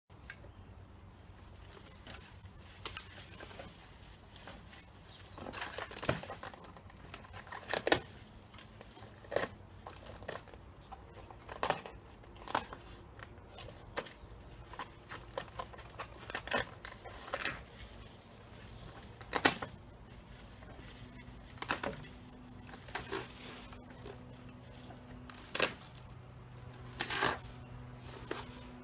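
Two dogs tearing and chewing dry fronds and leaves on a wooden deck: irregular crackling, rustling and ripping of the dry leaves every second or two, the loudest rips about 8 and 19 seconds in.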